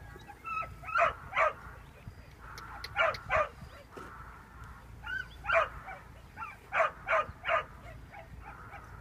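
A dog barking: short, sharp barks in pairs about half a second apart, then a run of three near the end.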